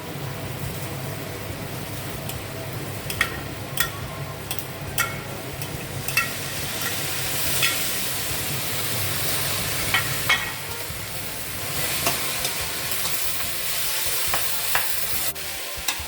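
A pan of sautéed onion, carrot and celery sizzling in olive oil as chopped tomatoes are added and stirred in. A utensil clicks against the pan every second or two.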